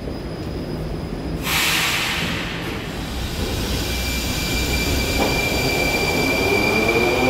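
Moscow metro train at the platform: a short, loud hiss of air about a second and a half in, then a steady high whine, and from about five seconds in a rising whine of the traction motors as the train starts to pull away, over a low rumble.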